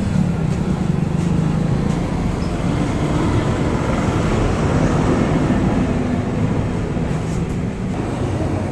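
Steady low rumbling background noise at an even level, with no distinct knocks or strikes.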